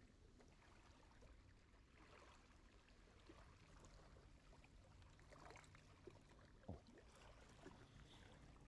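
Near silence: faint outdoor ambience with a few soft ticks.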